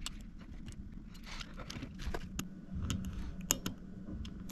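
Small plastic parts of a 3D printer's filament feed unit clicking and rattling as they are handled and pulled apart, with scattered light clicks and a sharper click at the very end.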